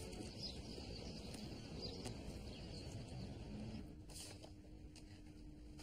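Faint outdoor street ambience, a low steady rumble with a few light knocks, giving way about two-thirds of the way through to quieter indoor room tone with a faint steady hum.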